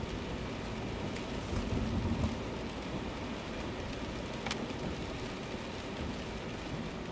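Steady noise of a car driving on a wet road in rain, heard from inside the cabin: tyre hiss and rain on the car, with a few faint ticks.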